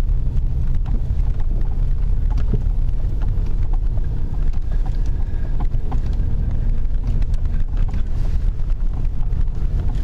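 Truck climbing a steep, rough track, heard from inside the cab: a steady low rumble of engine and tyres, with scattered knocks and rattles as it jolts over the ground.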